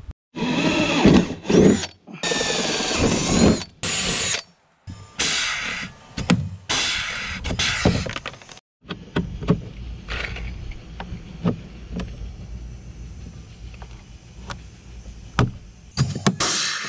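Cordless drill boring rivet holes through a half-inch PVC deck board on an aluminum boat frame, in several short runs whose pitch rises and falls. Then come scattered sharp clicks and knocks, and near the end a short loud burst from a pneumatic rivet gun setting a rivet.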